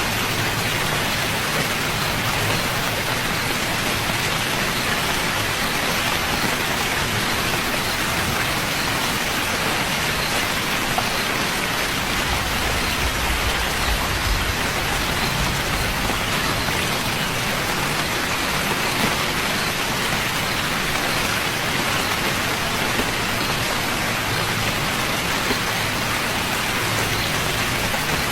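Steady rain falling, an even hiss of many drops, with a low rumble swelling partway through.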